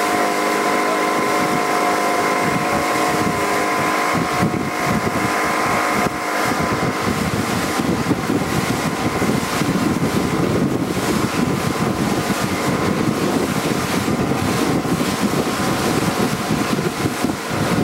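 Motorboat engine running steadily under way, with a constant hum, and wind buffeting the microphone. The buffeting gets heavier from about six seconds in.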